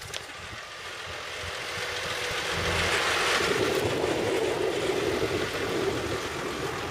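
Massey Ferguson farm tractor's diesel engine running as it drives past close by. It grows louder over the first two seconds or so, then holds steady.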